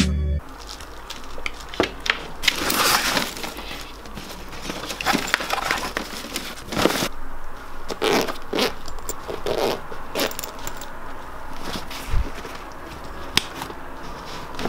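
A black fabric camera bag being handled: irregular rustling and scraping of the cloth, zipper pulls and sharp clicks of buckles and clips.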